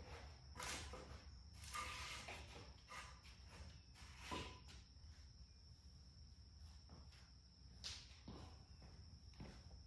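Faint footsteps with scattered light knocks and scrapes over a steady low hum, the clearest knocks about four and eight seconds in.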